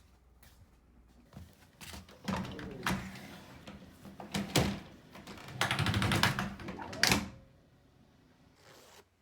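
A run of clicks, knocks and clatter from objects being handled, thickest about five to seven seconds in.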